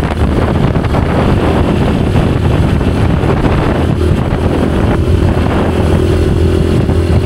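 A motor vehicle runs steadily while wind buffets the microphone, a loud, even rumble. A steady hum joins about four seconds in.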